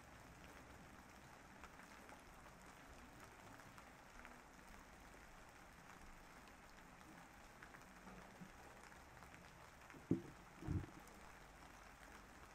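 Steady rain falling, a soft even hiss with scattered drop ticks. Two brief low thumps about ten seconds in.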